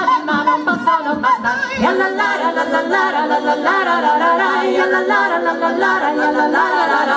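Four women singing a cappella in close harmony, several voice parts moving together. Soft low beats keep time during the first two seconds.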